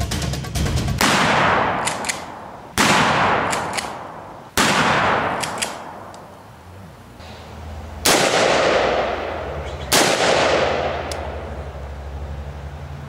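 Five loud gunshots, each ringing out in a long echoing decay. They come about two seconds apart, with a longer gap in the middle, and faint sharp clicks follow the first few. A low steady drone runs underneath.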